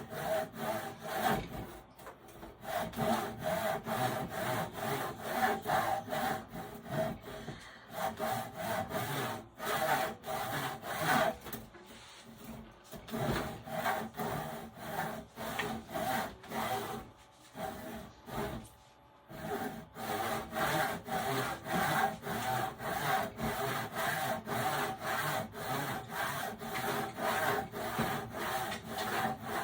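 Handsaw cutting through wood in steady back-and-forth strokes, about two a second, stopping briefly a few times before carrying on. The saw doesn't seem too sharp.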